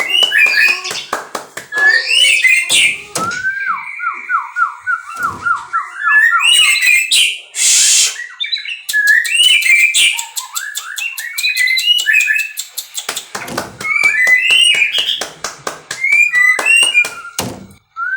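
White-rumped shama singing a loud, varied song of short whistled phrases and trills, scattered with sharp clicking notes. A few seconds in comes a fast run of repeated notes.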